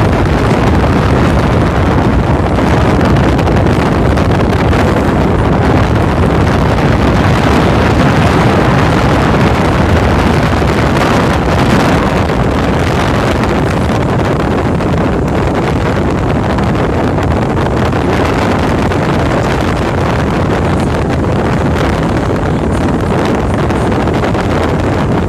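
Steady rush of wind buffeting the microphone on the deck of a moving harbor cruise boat, over the boat's engine and water running past the hull; the noise eases slightly about halfway through.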